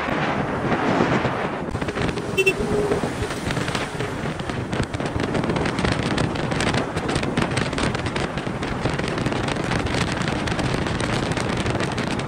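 Wind buffeting the microphone on the move, a dense, uneven crackling rush.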